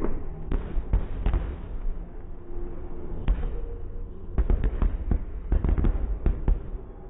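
Aerial fireworks bursting: a series of sharp bangs in irregular clusters, densest between about four and six and a half seconds in, over a steady low background rumble.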